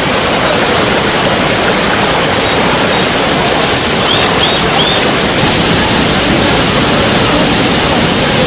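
Waterfall: a steady, loud rush of falling water. A few faint high chirps sound briefly about four seconds in.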